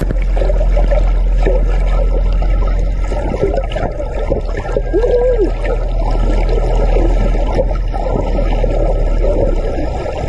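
Muffled underwater recording: water sloshing and bubbling around the microphone over a steady low hum, with one short arching sound about halfway through.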